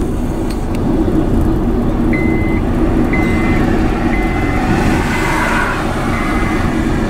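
Moving car's engine and tyre noise heard inside the cabin at highway speed. From about two seconds in, a high electronic beep repeats about once a second.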